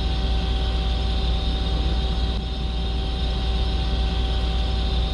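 Steady low hum of a powered-up Mazak CNC lathe idling with its spindle stopped, with a faint steady whine above it.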